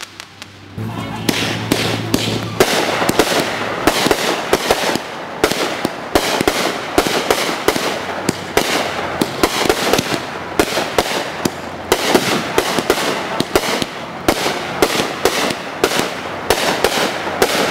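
Consumer aerial fireworks going off in a rapid barrage: a dense run of sharp pops and bangs, many a second, starting about a second in and keeping on without a break.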